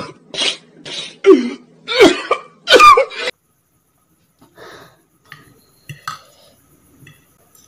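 A man crying out loudly in about six sobbing, wailing bursts over the first three seconds. After that, a few faint clicks of a spoon and fork against a plate.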